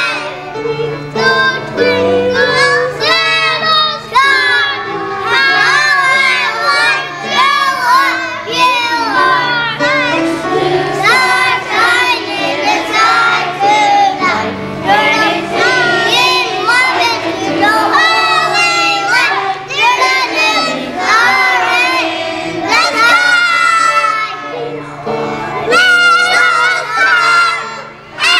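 Young children's choir singing a song together over an instrumental accompaniment of low held notes.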